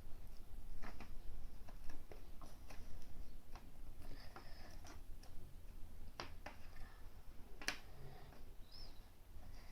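Scattered light clicks and taps of plastic Play-Doh tools and pieces being handled, irregularly spaced, over a low steady hum.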